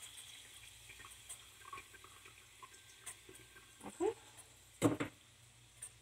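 Faint drips and light clinks of cooking oil being taken out of the frying pan and poured into a small pan, with two louder knocks about four and five seconds in.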